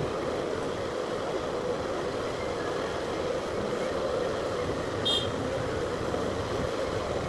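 Steady background hum and rumble of mechanical noise, with a short high-pitched chirp about five seconds in.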